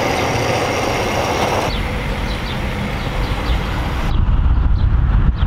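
Gasoline pumping through a gas-pump nozzle into a car's fuel tank: a steady rushing hiss with a faint thin whine. About four seconds in it gives way to a low outdoor rumble of wind and road traffic.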